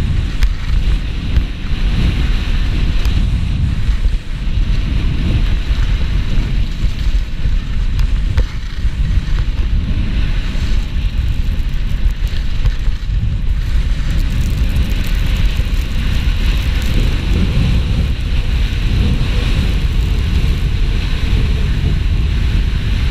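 Wind buffeting a GoPro's microphone while skiing downhill at speed, a loud steady rumble, with the hiss and scrape of skis running over packed snow.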